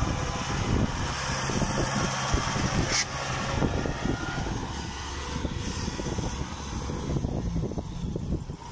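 Kubota combine harvesters' diesel engines running steadily as the tracked machines crawl through soft paddy mud, with irregular knocks and clatter and one sharp clank about three seconds in.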